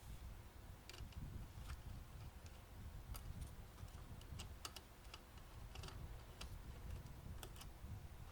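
Faint, irregular small clicks and taps of hands and small tools on the multimeter's plastic case and circuit board as it is being taken apart.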